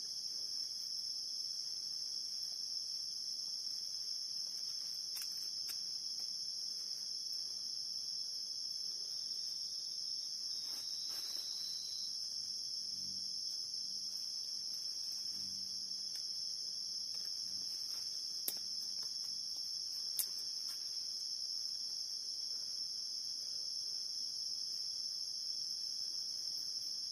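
Steady chorus of forest insects, a continuous high-pitched trilling, with two sharp clicks about two-thirds of the way through.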